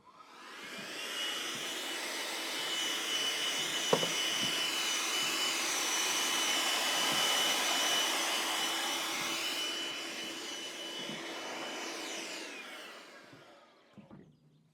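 An electric power tool's motor spinning up, running steadily with a high whine over a rushing noise, then winding down near the end. A sharp click about four seconds in.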